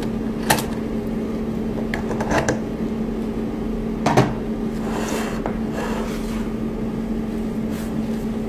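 Mini 3D sublimation machine running in its cooling mode with a steady hum, with a few sharp clicks and knocks of handling about half a second, two and four seconds in.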